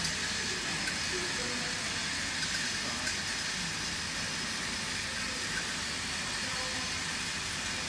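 Steady machinery noise from a running stick lip balm filling and capping line: an even hum and hiss with no clear rhythm, broken by a couple of faint clicks.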